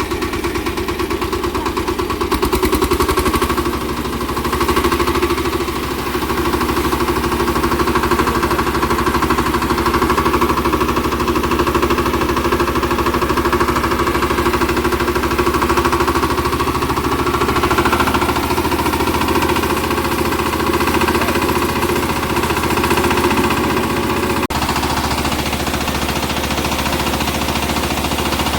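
Small engine of a paddy harvesting machine running steadily with a rapid, even chugging, with a sudden change in the sound about 24 seconds in.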